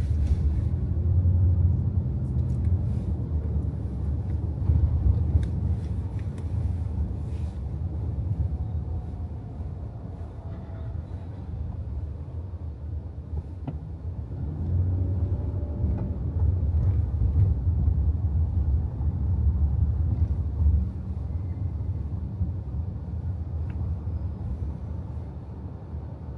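Car driving through a road tunnel: a steady low rumble of tyre, engine and traffic noise. It swells louder for a few seconds at the start and again about halfway through.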